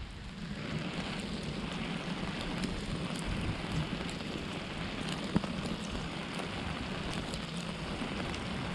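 Heavy rain falling steadily on the water and the boat, with scattered drops tapping close to the camera and one sharper tap about five seconds in.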